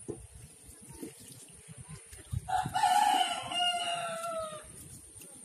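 A rooster crowing once, a crow of about two seconds that starts a little over two seconds in and ends on a long, slightly falling note.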